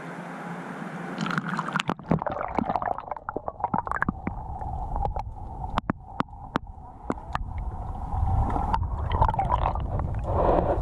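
Sea water lapping, then a camera plunging under the surface about a second and a half in: muffled underwater sound with gurgling, scattered sharp clicks and a low rumble that grows from about eight seconds.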